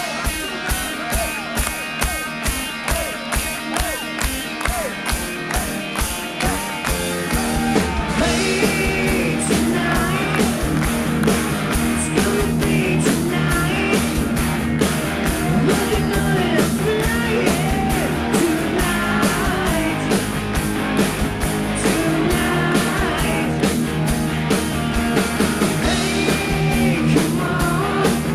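Rock band playing live, amplified: electric guitars, bass guitar and a drum kit keeping a steady beat. About seven seconds in the full band comes in louder, with a voice singing over it.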